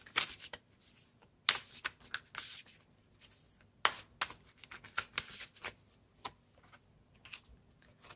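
A deck of oracle cards shuffled by hand: irregular short flurries of cards sliding and flicking against each other, with brief pauses between them.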